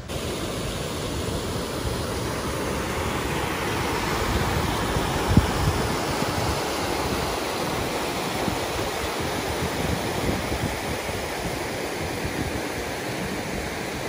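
Creek white water rushing over rocks, a steady rush of running water, with a single low thump about five seconds in.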